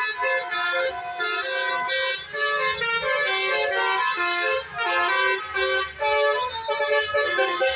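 Bus basuri (telolet) musical air horn playing a tune: several horn tones sounding together and stepping from note to note.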